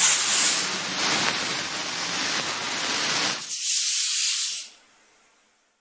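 A sound-effect hiss, like spray or steam, runs for about three and a half seconds, then turns into a brighter, higher hiss for about a second and cuts off.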